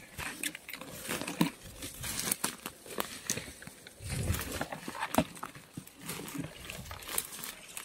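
Footsteps pushing through forest undergrowth: dry fallen leaves and twigs crackling and snapping irregularly, with plants brushing and rustling against the legs.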